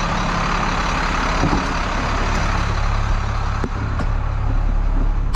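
Heavy diesel engine running steadily under a broad rushing noise, with a couple of faint clicks near the end.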